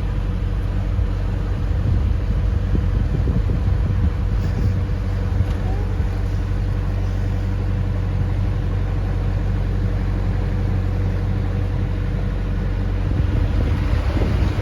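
Narrowboat's diesel engine running steadily at a low, even pitch, with wind buffeting the microphone more strongly near the end.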